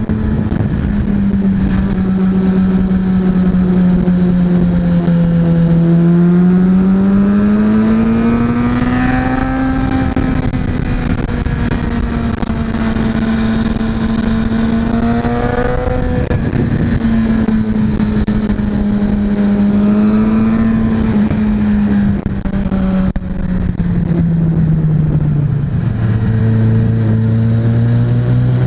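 Yamaha XJ6's inline-four engine running on the road, its pitch rising and falling with the throttle through the bends, over steady wind noise on the helmet microphone. A few seconds before the end the engine note drops lower.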